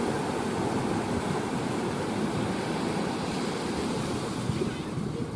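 Steady rush of sea waves washing on the shore.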